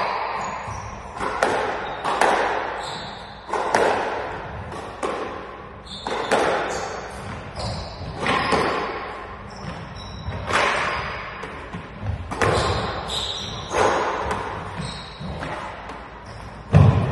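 A squash ball being struck back and forth in a rally: a sharp smack of racket on ball and ball on wall about every second, each echoing around the court, with short high shoe squeaks on the court floor in between.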